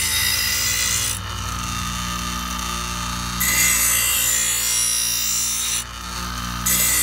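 Ryobi 6-inch bench grinder running with a steady hum while a steel lawnmower blade is pressed to the wheel in passes. A harsh grinding hiss sounds for the first second, again from about three and a half to six seconds in, and starts again near the end.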